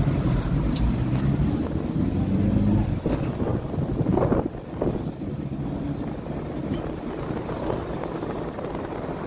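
Engine and road noise of a moving car, heard from inside the car. A low engine hum is strongest for the first three seconds, then settles to a quieter steady rumble.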